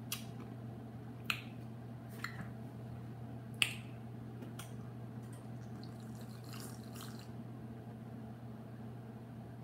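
A person sipping from a glass of iced drink: a handful of short sharp clicks and small knocks, the loudest a little under four seconds in, over a steady low hum.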